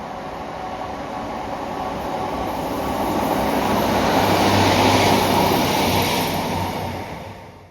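A diesel train passing, its running noise growing louder to a peak about two-thirds of the way through, then fading and cutting off abruptly.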